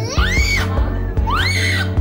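Background music with a steady low beat and two high vocal cries in it, each rising and then falling in pitch.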